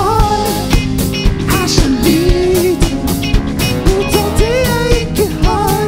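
Rock band playing live: electric guitars, keyboards and drums in a steady beat, with a voice singing a melody over them.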